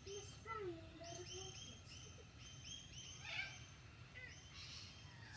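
Birds calling in the background: runs of short, rapidly repeated high chirps, with a few lower sliding calls, over a steady low rumble.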